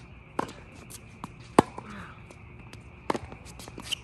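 Tennis rally: sharp pops of rackets striking the ball and the ball bouncing on the hard court, three loud ones about a second or more apart, the loudest about one and a half seconds in, with lighter clicks between.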